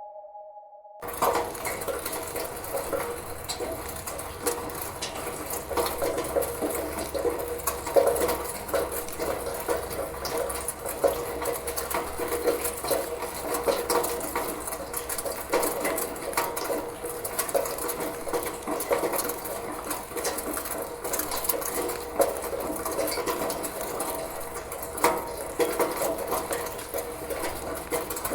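Rainwater running through a gutter: a continuous wash of flowing, trickling water with irregular splashes and drips. It starts about a second in.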